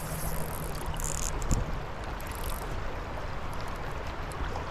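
Creek water flowing steadily, with one short thump about a second and a half in.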